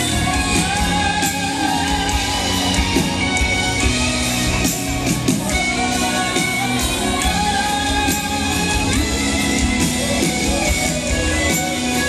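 Live pop band playing loudly, with a woman singing lead vocals over electric guitar, violin and keyboard.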